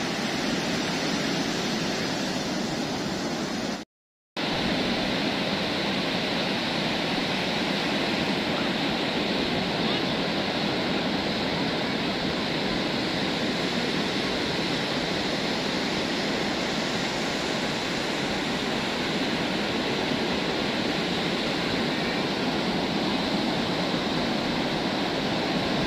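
Ocean surf breaking on a sandy beach, a steady wash of noise. It is cut by a sudden half-second gap of total silence about four seconds in.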